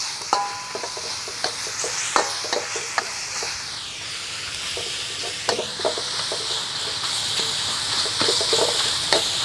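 Stir-fry sizzling in a hot pan as it is stirred, with scattered scrapes and taps of the utensil against the pan. The sizzle thins about four seconds in and comes back stronger soon after.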